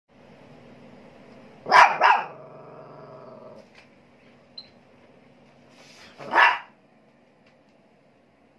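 Small long-haired dog barking: two sharp barks in quick succession about two seconds in, and a single bark about six seconds in. A low, steady growl runs under the first barks and stops a little after them.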